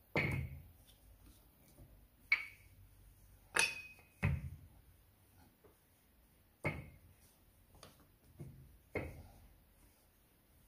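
Wooden rolling pin rolling out floured pastry dough on a silicone mat over a stone counter, giving a series of sharp knocks and light clinks, about eight in ten seconds, some with a brief ringing.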